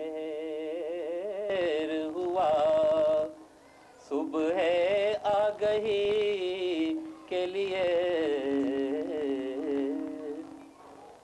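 A man singing a naat in long, drawn-out phrases, with wavering held notes. The voice pauses briefly about three seconds in and again just before the end.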